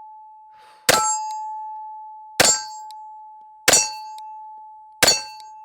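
Four slow, evenly spaced shots from a TISAS 1911 A1 pistol in .45, each hitting a steel target that rings on with a steady ringing tone, fading until the next shot.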